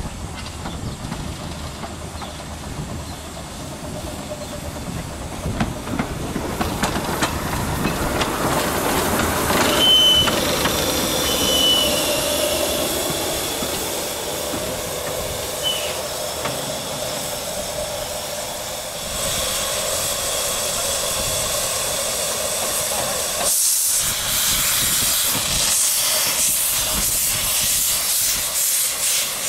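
Steam hissing from 15-inch-gauge miniature steam locomotives, loudest and fullest in the last few seconds, with a few short high squeals about halfway through.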